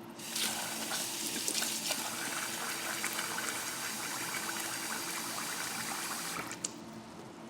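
Kitchen tap water running into a vessel for about six seconds, then cut off, followed by a short click.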